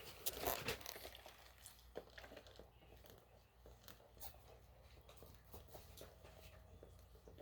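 Faint crinkling and tearing of paper food wrappers, with scattered small clicks.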